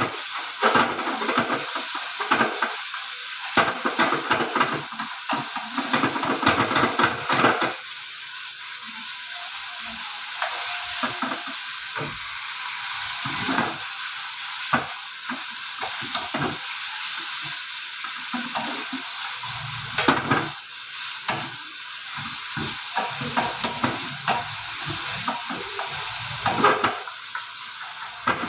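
Paneer cubes frying in masala in a pan: a steady sizzle with a spoon scraping and stirring against the pan, the stirring busiest in the first several seconds and picking up again later.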